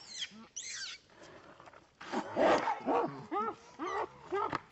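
Young macaques screaming: high, gliding squeals in the first second, then from about two seconds in a harsh shriek followed by a rapid run of short, arched cries, several a second.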